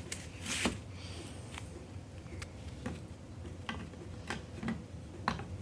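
Small plastic toy pieces being handled: a string of light, irregular clicks and taps, about one every half second to a second.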